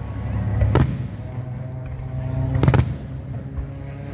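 Aerial firework shells bursting: a sharp bang about a second in, then a quick double bang near three seconds in.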